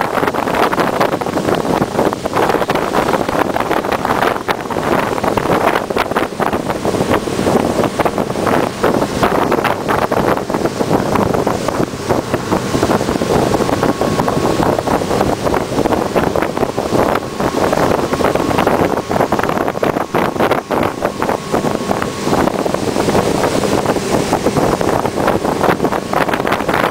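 Motorboat running at speed: engine and rushing water under heavy wind buffeting on the microphone.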